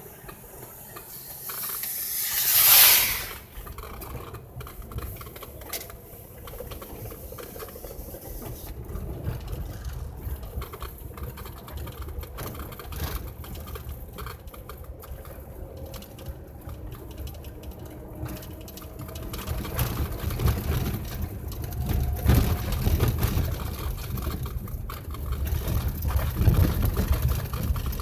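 Vehicle interior noise while driving on slushy, then snow-packed ground: a steady low engine and tyre rumble. About three seconds in comes a loud, rising hiss lasting about a second, like slush spraying under the tyres. The rumble grows louder and rougher in the last third, as the tyres run over packed snow.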